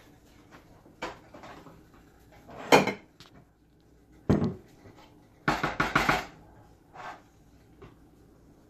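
Scattered clatters and knocks of cookware: a wooden spoon knocking in a wok and a glass baking dish being handled on a plastic cutting board. The loudest knock comes just under three seconds in, followed by a quick run of clatters about halfway through.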